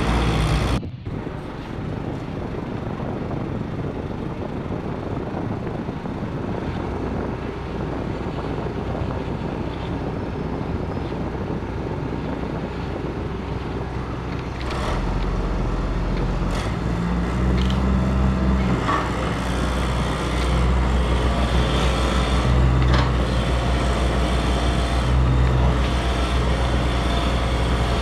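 A Double E 561 remote-control toy excavator working, its small motors and gears moving the boom and bucket over a steady low drone. The sound gets louder about halfway through.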